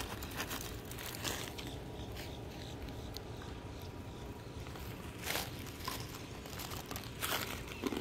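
Dry leaves and grass crunching and crinkling, with a few short sharper crunches spread through, over a low steady rumble.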